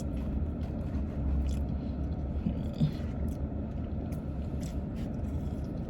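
Steady low rumble inside a car cabin, with a few faint clicks and small eating sounds.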